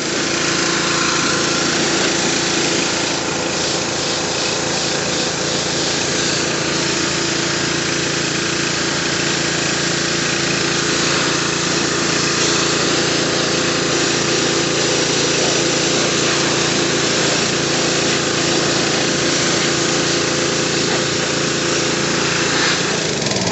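Pressure washer running steadily: a constant motor-and-pump drone under the loud hiss of the high-pressure water jet spraying down a dirt bike. It cuts off abruptly at the end.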